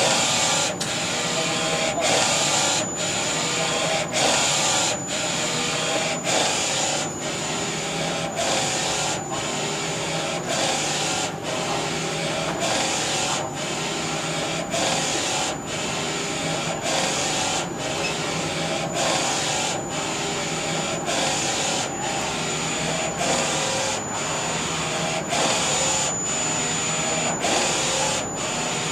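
NC-610A flatbed textile inkjet printer's print carriage sweeping back and forth over a T-shirt: a steady motor whir with a thin high whine, broken by a short dip at each end of travel, a little more than once a second.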